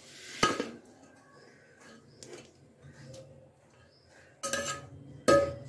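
Metal spoon clinking against an aluminium cooking pot and a plate as cooked rice is spooned into the pot to layer a biryani: one sharp ringing clink about half a second in, then two more close together near the end.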